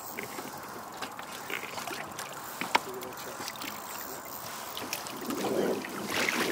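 Choppy river water sloshing and splashing against the side of a fishing boat while a large sturgeon is handled at the surface, with wind on the microphone. There is a single sharp knock a little under three seconds in, and the splashing and wind noise grow louder near the end.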